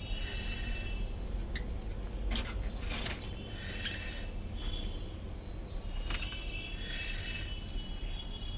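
Pet birds calling in short high chirping phrases that repeat every few seconds, over a steady low rumble and a few sharp clicks.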